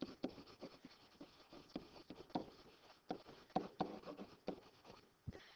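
Stylus tapping and scratching on a tablet screen while handwriting: a faint, irregular string of small clicks.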